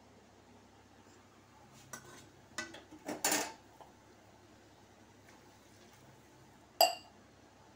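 Metal kitchen pots and utensils clattering: a few short knocks and scrapes about two to three and a half seconds in, then a single ringing metal clink near the end.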